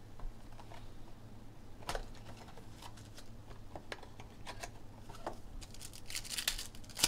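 Cardboard trading-card box handled and opened, with scattered light taps and rustles, then a card pack's wrapper crinkling loudly as it is pulled out and torn open near the end.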